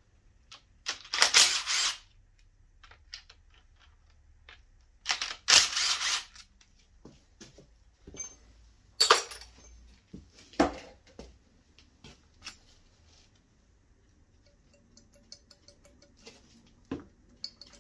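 Cordless impact driver run in two bursts of about a second each, a few seconds apart, undoing the oil pump bolts on a VQ35DE engine. Scattered metallic clinks of loosened bolts and parts follow.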